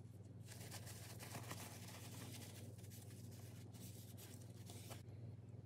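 Paper towel rubbing and wiping excess grease off the rim of a grease-packed aluminium drill gear housing: a faint scratchy rustle that starts about half a second in and stops about five seconds in.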